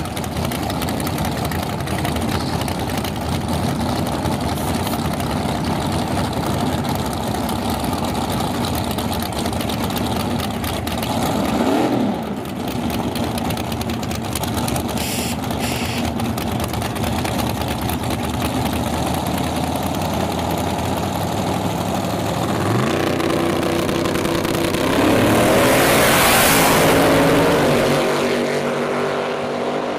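Two small-tire drag race cars idling and blipping their engines while staged at the starting line, with one brief rev partway through. Late on they launch at full throttle: the engine note rises and is loudest just after the launch, then recedes as the cars run down the strip.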